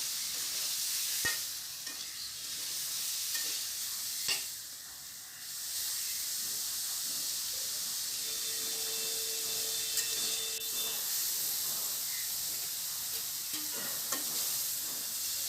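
Boiled soya chunks sizzling as they fry in hot oil in a kadai, stirred with a spatula that clicks against the pan now and then. The sizzle is steady and dips briefly about five seconds in.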